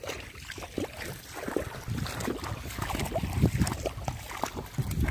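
Muddy pond water sloshing and splashing in irregular bursts as people wade and grope through it, getting louder about two seconds in.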